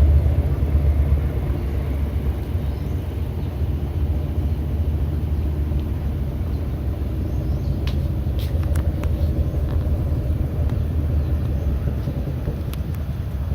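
Washing machine on its spin cycle, giving a steady low rumble that eases a little after the first second or so, with a few faint clicks.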